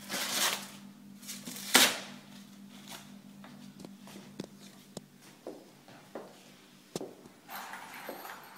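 Plastic packaging rustling and crinkling as a shelf is pulled out of its wrapping. The loudest rustle comes about two seconds in, followed by scattered light clicks and taps.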